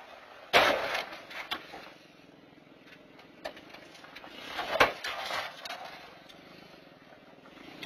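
A small SUV crashing into the front of a parked 2000 Ford F-350 pickup, picked up by a security camera's microphone: a sudden loud crunch of bumper and grille about half a second in, with rattles trailing off over about a second. A second loud crunch follows about four seconds later.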